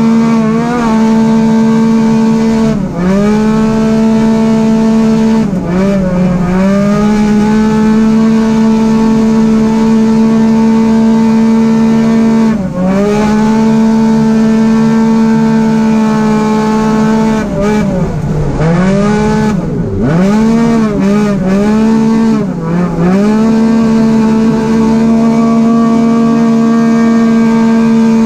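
Arctic Cat side-by-side race car's engine heard from inside the cab, running flat out at a steady high pitch. The revs dip briefly and climb back several times, in a quick cluster about two-thirds of the way through.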